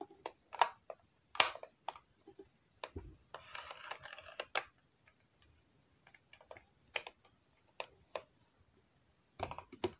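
Irregular clicks and knocks of a Casio TV-770 pocket television's plastic case being handled and set down on a wooden desk, with a short scraping rustle about three and a half seconds in.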